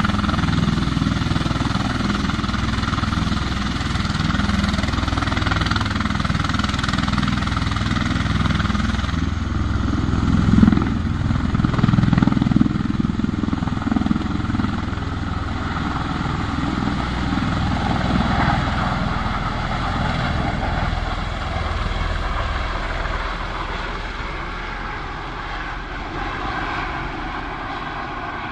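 V-22 Osprey tiltrotor's rotors and engines running loud and steady as it lifts off, rising to its loudest after about ten seconds, then fading as it flies away.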